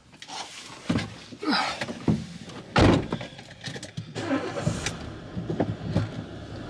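Someone getting into a car: rustling and seat noises, then the car door shuts with one loud thump about three seconds in. About a second later the engine starts and settles into a steady idle.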